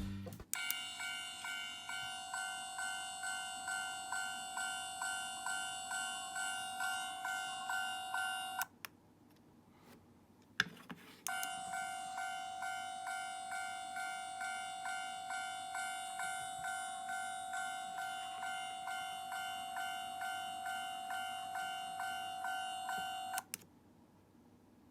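Toy railroad crossing's electronic warning bell sounding its repeated 'kan-kan' ding, about two strikes a second. It stops after about eight seconds; a click follows, then it rings again for about twelve seconds before cutting off.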